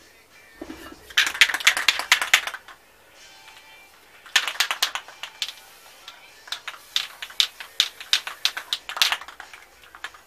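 Aerosol spray-paint can being shaken, its mixing ball rattling in three bursts of quick clicks, with faint music underneath.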